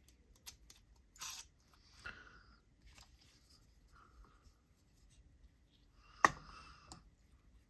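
Small clicks and brief scraping sounds from handling a folding knife with a crossbar lock and small tools, with one sharp, ringing click about six seconds in.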